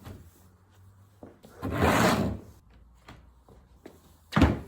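Workbench handling sounds: a sliding scrape lasting about half a second, about two seconds in, then a single sharp thud near the end as something is set down.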